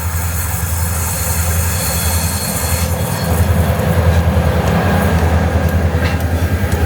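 Tasrail 2050 class diesel-electric locomotives with EMD 645 prime movers hauling a loaded coal train: a steady low engine drone with rail noise, getting louder through the first half.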